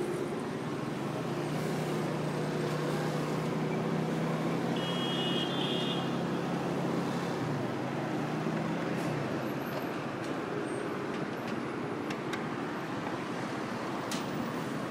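Small 50cc scooter engine running steadily while riding, under road and wind noise, with the sound of surrounding city traffic. A brief high-pitched tone comes about five seconds in, and a sharp click near the end.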